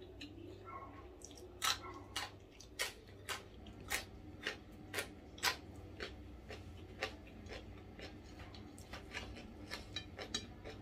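Close-up crunching of a person chewing crisp food, a sharp crunch about twice a second for a few seconds, then softer, irregular crunches and clicks.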